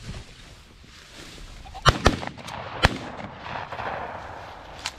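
Three shotgun shots at a flushed pheasant: two close together about two seconds in, the third just under a second later.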